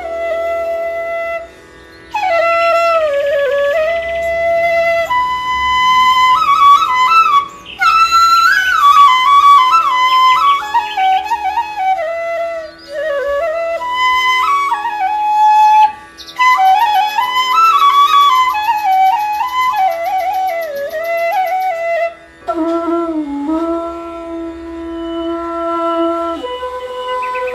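Background music: a flute playing a winding, ornamented melody in phrases separated by short breaks, over a steady held tone.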